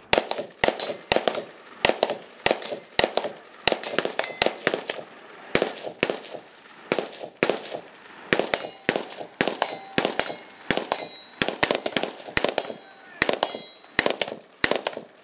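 Gunfire from a two-man team running a break-contact drill: sharp shots in irregular strings, at times several a second, each with a short echo.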